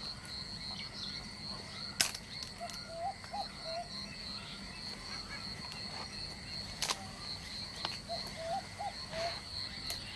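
Steady high-pitched drone of insects, crickets or cicadas, in swamp scrub. A few sharp clicks cut in, the loudest about two seconds in, and twice a short run of quick small chirps is heard.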